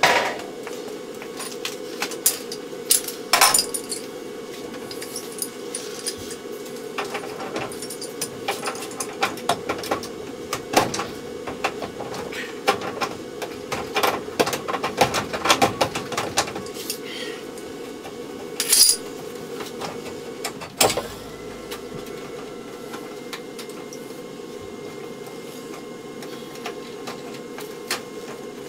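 Hand tools and metal parts clicking, clinking and knocking against a gas furnace's sheet-metal cabinet during disassembly, in many short irregular strikes over a steady hum.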